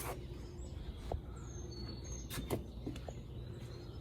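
A few sharp clicks and knocks of parts being handled, the loudest about two and a half seconds in, with birds chirping in the background.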